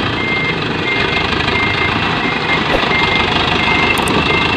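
Dump truck reversing, its reverse alarm sounding a repeating high beep over the steady running of its diesel engine as it backs onto a pile of sand-and-gravel.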